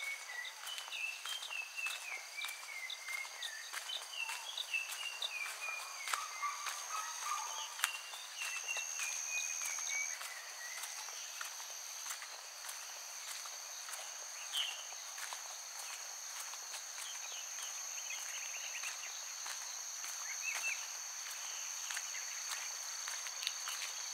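Crickets trilling in a steady, continuous high tone while a bird sings repeated phrases of descending stepped notes through the first ten seconds, with scattered chirps later. Footsteps along a path sound through the first half.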